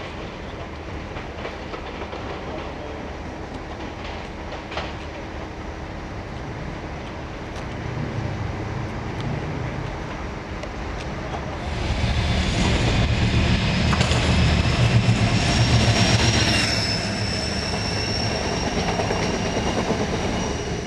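A Class 33 diesel locomotive, with its Sulzer eight-cylinder engine, approaching and passing close by. The engine rumble grows louder about eight seconds in, and from about twelve seconds the wheels squeal on the curving track for several seconds as the locomotive draws level.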